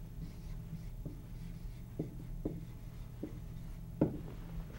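Dry-erase marker writing on a whiteboard: a handful of short taps and strokes, the sharpest about four seconds in, over a steady low room hum.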